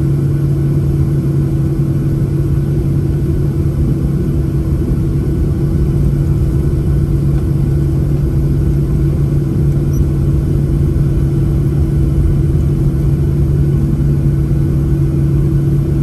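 Cabin noise of a Boeing 737-800 on the ground after landing, heard from a window seat over the wing. The CFM56-7B engines and airframe make a steady low hum with a rumble underneath that does not change.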